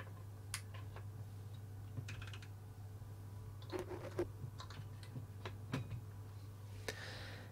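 Faint, scattered clicks and taps of buttons being pressed on a Yokogawa DC voltage source's front panel to set it to 100 volts, over a low steady mains hum.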